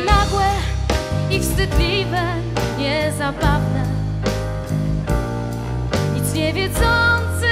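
A live band playing jazz-pop with drum kit and bass under a woman's singing voice, held notes wavering with vibrato.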